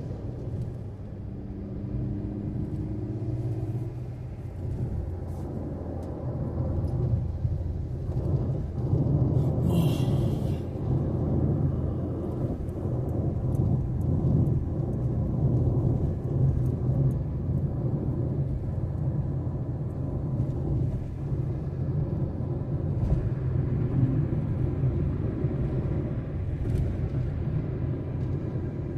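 Steady low rumble of a vehicle travelling on a road, engine and tyre noise together, growing a little louder a few seconds in. A short hiss cuts across it about ten seconds in.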